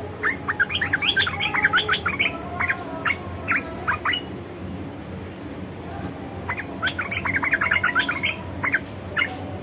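Asian red-eyed bulbul chattering: a rapid run of short, quick notes for about four seconds, a pause, then a second burst of the same chatter near the end.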